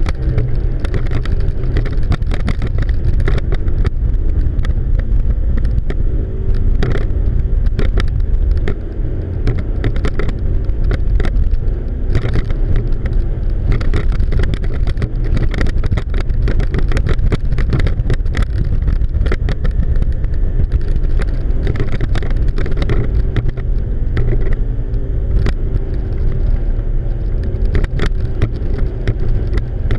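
Twin outboard motors running steadily under heavy load while towing a grounded boat off on a line, with wind buffeting the microphone.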